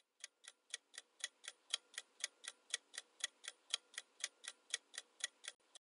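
Ticking clock sound effect marking a countdown timer: even ticks, about four a second, that stop near the end.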